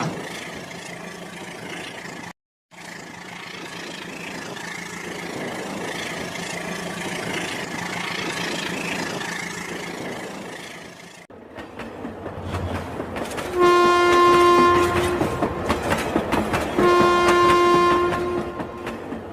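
Rail King toy train running with a steady whir. Later its electronic train horn sounds twice, each blast about a second and a half long.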